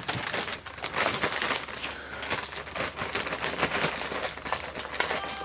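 Crinkling and rustling with many small irregular clicks, from handling sewing machine foot pedal controllers and their cords.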